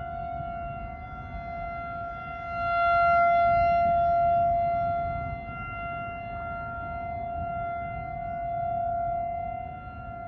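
Outdoor tornado warning siren sounding a steady, unwavering tone that swells louder twice and fades back, warning of a tornado.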